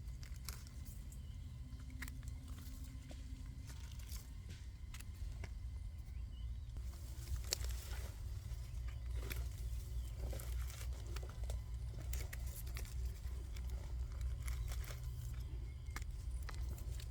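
Scattered rustles, crackles and small snaps of hands and feet working through dry forest litter while mushrooms are picked, over a steady low rumble.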